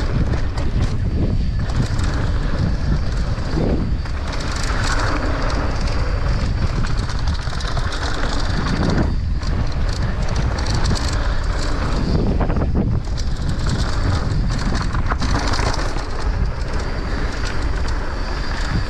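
Wind buffeting the microphone of a rider's camera, mixed with mountain-bike tyres rolling and skidding over damp packed dirt at speed. Scattered clicks and knocks come from the bike over the bumps.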